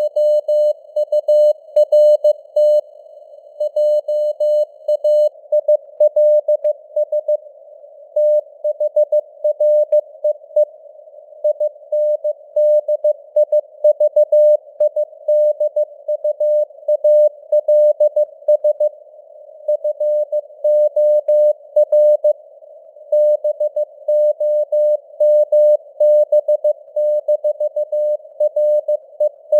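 Morse code (CW) sent at 15 words per minute: a single mid-pitched beep keyed on and off in short and long marks, the rhythm of letters and words. It sits over a narrow band of simulated radio hiss, and the signal strength varies as if fading on the air (QSB).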